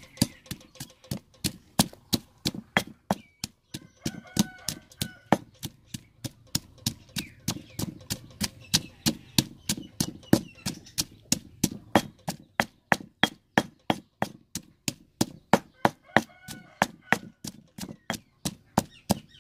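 Pestle pounding garlic cloves and red chilli in a stone mortar: a steady run of dull thuds, about three a second, as the cloves are crushed to a coarse paste.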